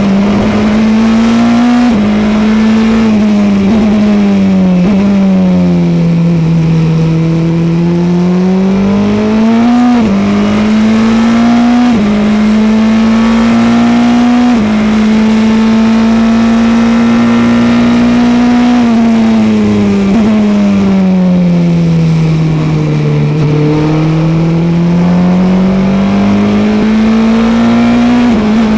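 Formula Renault 2000 single-seater's 2-litre four-cylinder engine heard onboard at racing speed, its note climbing and falling with the throttle and breaking briefly at several gear changes in the first half. The pitch then holds level at full throttle for a few seconds, falls away as the car slows, and climbs again near the end.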